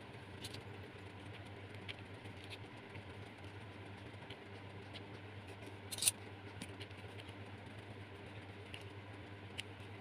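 Scallop shells clicking and scraping against each other and the board as they are handled, a few light clicks scattered through, with a quick cluster of sharper clicks about six seconds in, over a steady low hum.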